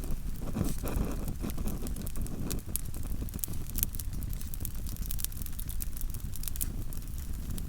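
Small wood fire crackling in a portable Picogrill 85 fire pit: scattered, irregular sharp pops over a steady low rumble.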